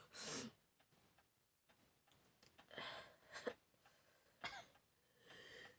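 Near silence, with a few faint, short sniffs and breaths from a person trying to bring on a sneeze.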